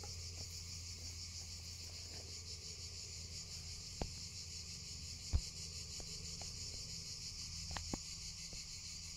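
A steady, high-pitched chorus of chirring insects runs throughout, over a low hum. A few sharp clicks cut through it, the loudest about halfway.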